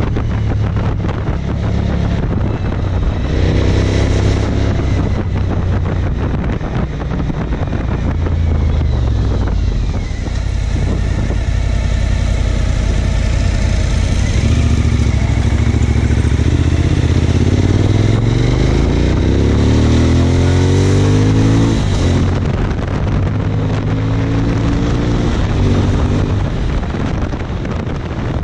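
Suzuki DL1000 V-Strom's V-twin engine heard from the rider's seat while cornering. The engine pitch drops about a third of the way in, then climbs several times in the middle as the bike accelerates out of the bends. Wind rushes steadily over the microphone.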